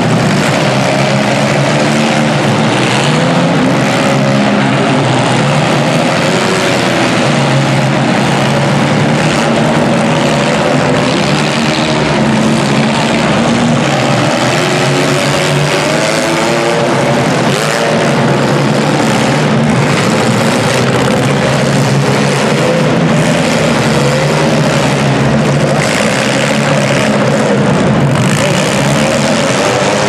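Engines of many compact demolition-derby cars revving and running hard at once, rising and falling in pitch, with an occasional crash as the cars hit each other.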